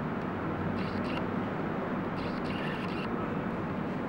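Steady low rumble and hiss of background noise, with faint brief higher sounds twice.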